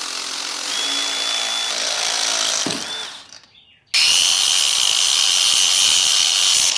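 Cordless drill running with a drill bit, drilling out a battery cable's ring terminal to enlarge its hole for a bigger bolt; it stops about three seconds in. After a short pause an angle grinder starts with a loud, steady high whine, grinding the drilled terminal to clean it up.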